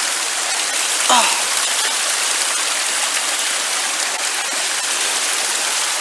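Small mountain stream splashing down over rocks close by, a steady rushing. About a second in, a short voice sound falls in pitch.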